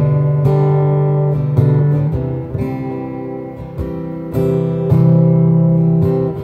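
Acoustic guitar strummed in chords that are left to ring, amplified through a Yamaha Stagepas 600i PA with its room reverb setting on. Several chord changes, each starting with a sharp strum.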